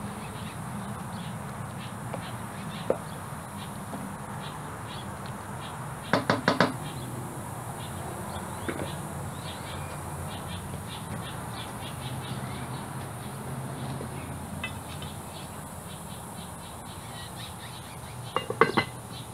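Quiet outdoor background with a steady low hum and faint high chirping throughout. About six seconds in there is a quick run of sharp knocks. Near the end comes a cluster of clicks as metal tongs set charcoal briquettes on the cast-iron Dutch oven lid.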